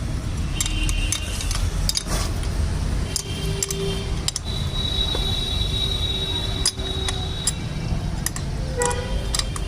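Irregular metallic clinks and taps of hand tools and steel suspension parts being handled, over a steady low background rumble.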